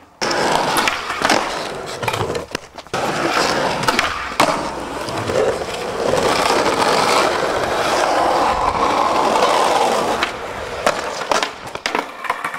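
Skateboard wheels rolling over asphalt and paving stones, broken by sharp clacks and knocks of the board hitting the ground. Near the end a skater falls and the loose board clatters away.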